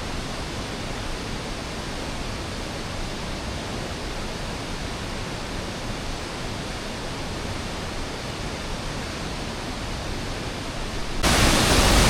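Steady rushing of river water, an even hiss across the whole range. About eleven seconds in, it becomes abruptly louder.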